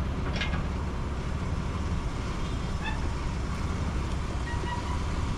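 Steady low rumble of a vehicle engine running at idle, with a brief sharp sound about half a second in.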